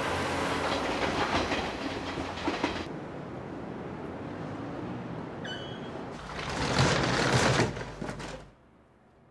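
A train passing, its wheels clattering over the rail joints. The sound eases after about three seconds, swells loud again near the end and cuts off suddenly.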